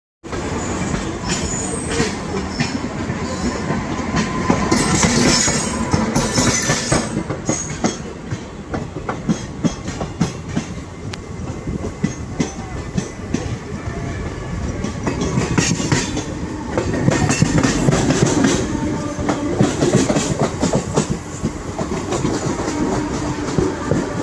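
Train running on the track, its wheels clattering over the rail joints in a rapid run of clicks. It grows louder twice, a few seconds in and again past the middle.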